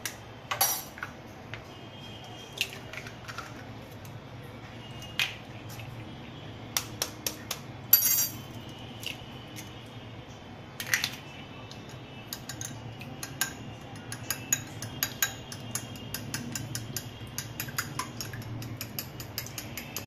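Eggs tapped and cracked against the rim of a glass bowl, a few separate sharp clicks, then the eggs beaten with a metal utensil that clicks rapidly against the glass for the second half.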